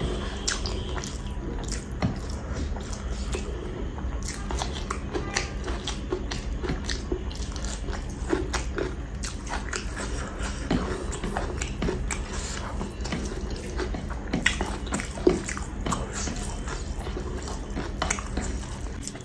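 Close-up wet eating sounds: chewing and lip-smacking with a full mouth, and squelching as a bare hand scoops and squeezes oily biryani rice, in many short clicks and smacks over a steady low hum.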